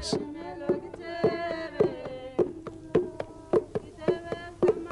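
Background music: a slow, even run of single notes on a tuned instrument, about two a second, each note ringing briefly.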